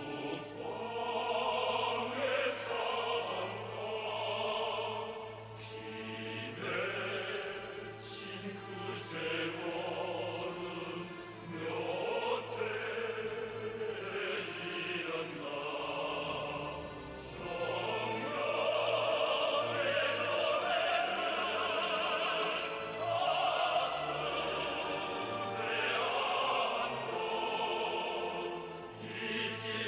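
Operatic singing with vibrato over orchestral accompaniment, with choir voices.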